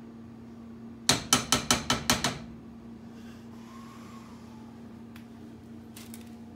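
A metal spoon rapped about seven times in quick succession against a saucepan to knock off the last of the cream cheese topping, about a second in.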